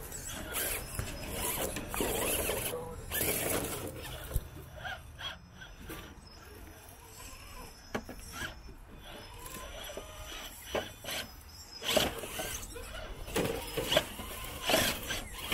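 Radio-controlled scale rock crawler whining from its electric motor and gearing as it climbs over boulders, in short stop-start bursts, with scattered knocks of tyres and chassis against rock.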